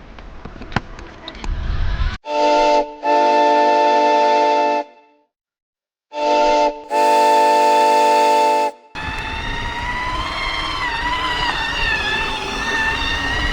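Toy train playing its recorded steam-whistle sound twice, each a short toot then a long one, with a pause between. A steady rushing sound with wavering tones follows.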